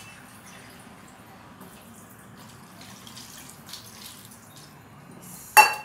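Cold water poured from a pot over boiled pasta in a steel colander in a sink, trickling and dripping faintly. Near the end comes one sharp, ringing metal clank.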